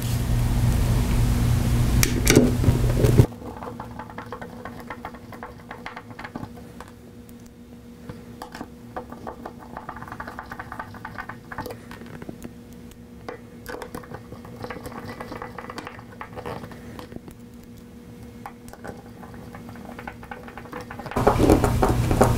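Light, scattered clicks and taps of a Torx screwdriver and small screws being worked into a plastic encoder housing. A steady low hum is heard for the first three seconds and again near the end.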